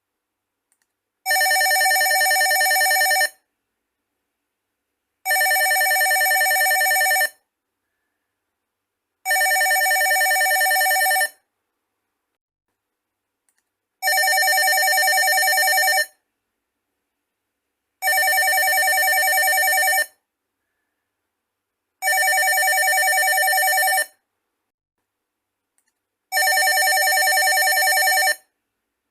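Landline office telephone ringing: seven steady rings of about two seconds each, repeating about every four seconds with silent pauses between.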